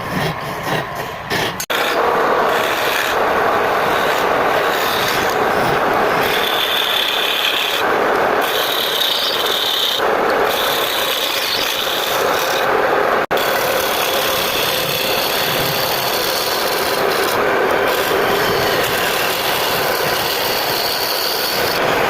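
Wood being abraded, a steady rasping, scraping sound that breaks off abruptly and resumes a couple of seconds in and again a little past halfway.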